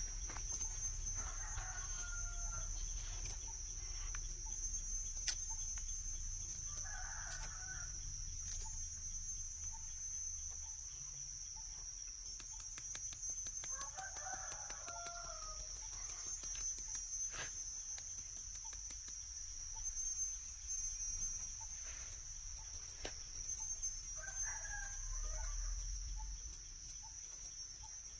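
A rooster crowing four times, each crow lasting about two seconds, over a steady high-pitched insect drone. Scattered light clicks are heard between the crows.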